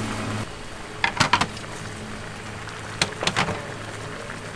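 Earthenware pots of soup boiling hard over a gas range's open burners, a steady low rumble. Two short clusters of clicks and taps come about a second in and again about three seconds in.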